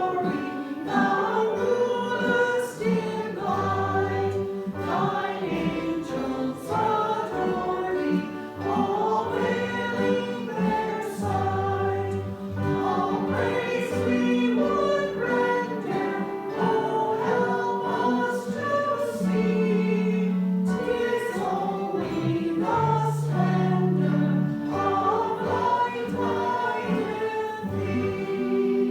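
Congregation singing a hymn together with instrumental accompaniment that holds long, sustained bass notes under the melody.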